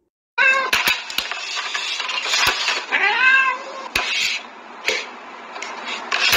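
A cat meowing: a short call just after the start, then a longer meow about three seconds in that rises and falls, over background noise with scattered clicks.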